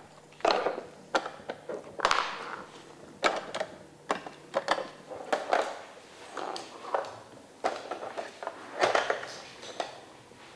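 Trixie Move2Win dog puzzle board being worked by a dog: irregular clacks and knocks, about one or two a second, as its cones and drawers are nosed and pushed about on the board.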